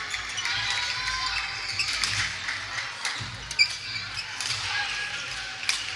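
Badminton hall ambience: sports shoes squeaking on the wooden court floor, a few sharp racket-on-shuttlecock knocks (the loudest about three and a half seconds in) and a murmur of voices.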